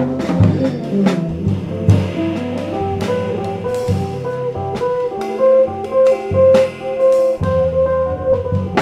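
Jazz trio of electric bass, electric guitar and drum kit playing, with a melodic line of held notes over the drums and cymbals; the multi-string electric bass is played high on the neck.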